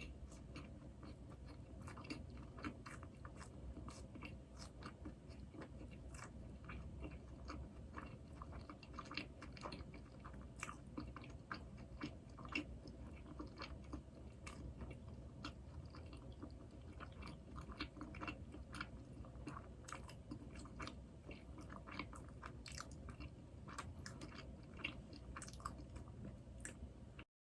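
A person chewing soft glazed doughnuts up close, a dense, irregular run of small wet mouth clicks.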